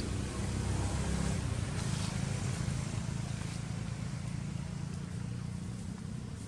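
A steady low rumble, slightly louder in the first couple of seconds, with no clear animal calls.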